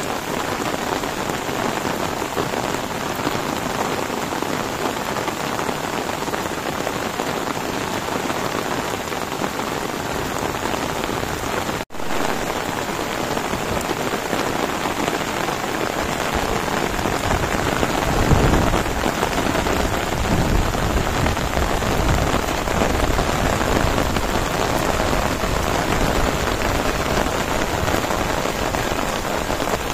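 Heavy rain falling steadily, a dense even hiss. A little past halfway a deeper low rumble swells in under the rain and stays.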